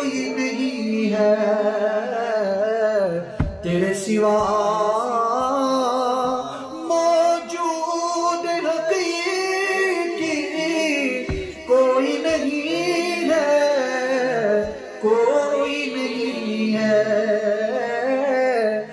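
Solo voice singing a devotional Urdu nazm in long, wavering, ornamented melodic phrases with no clear words, broken by a few short pauses.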